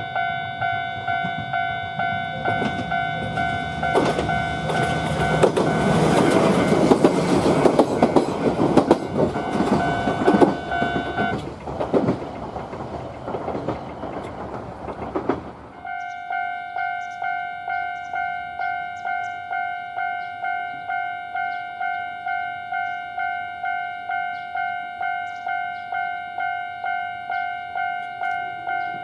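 A Japanese level-crossing alarm rings its repeating 'kan-kan' tone, just under two strikes a second, while an electric train passes with its wheels clattering over the rail joints. The bell stops about eleven seconds in as the train goes by, and about four seconds later the alarm starts ringing again.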